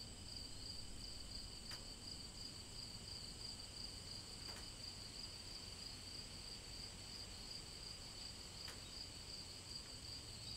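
Crickets chirping faintly in a continuous high trill, with three faint clicks spread through it.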